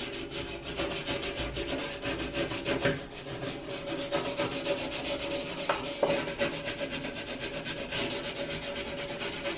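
Small stiff-bristled hand scrub brush scrubbing a white gas stove top around a burner, working a paste of baking soda, hydrogen peroxide and Dawn dish soap in rapid back-and-forth strokes.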